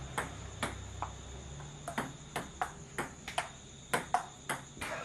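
Table tennis rally: the plastic ball clicks sharply off the paddles and the table, about a dozen clicks at an uneven pace of two to three a second. Insects chirr steadily behind.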